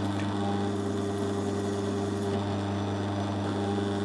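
Bench drill press running at a steady hum while a homemade silver-steel counterbore cuts a counterbore in an aluminium plate.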